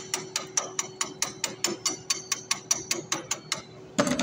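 Welder's chipping hammer tapping quickly and evenly on a steel shaft held in a lathe, about five light metal knocks a second, stopping near the end, followed by a louder clatter as the hammer lands on a wooden board. A steady low hum runs underneath.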